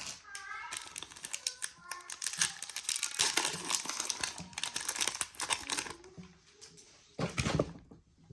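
Baseball cards and their pack wrapper being handled: crinkling and a rapid run of small clicks and rustles as the cards are flicked through, busiest in the middle, with a short burst of handling near the end.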